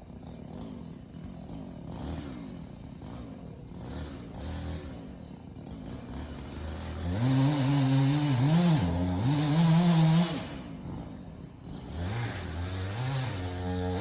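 Gas chainsaw engine running low near idle, then revved hard about halfway through, its pitch wavering for a few seconds before it drops back down. It revs up again near the end.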